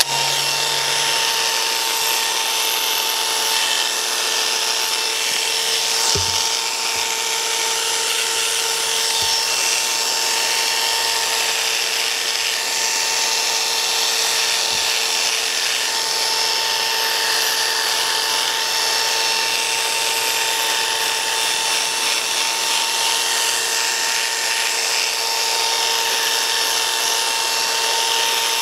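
Electric hair clippers running with a steady hum, cutting short hair at the back and sides of a man's head.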